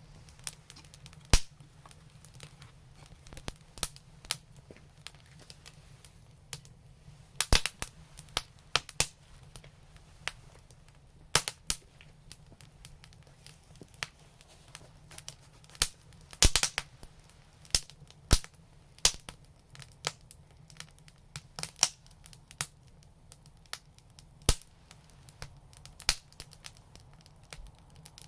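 Newly lit wood fire crackling, with sharp irregular pops every second or so, several in quick clusters.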